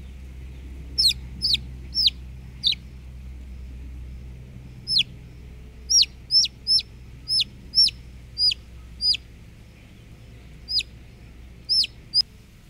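A young chick peeping loudly in short calls that each fall sharply in pitch, about fifteen of them in three bunches. These are the distress peeps of a chick held in the hand while herbal paste is dabbed onto its pox sores.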